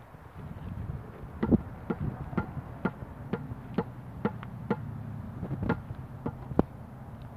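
Footsteps on bare dirt and loose debris at a walking pace, about two steps a second, starting about a second and a half in and stopping near the end.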